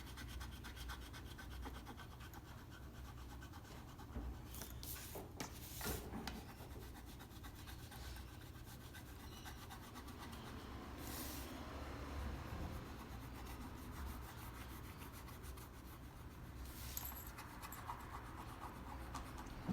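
Faint scratching and rubbing of a pen colouring in on paper, with a few brief knocks.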